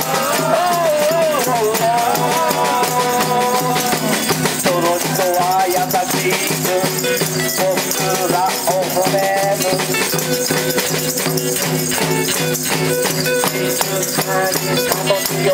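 Live acoustic and electric guitars strummed in a steady rhythm with a shaker rattling along, and a man singing at times over them.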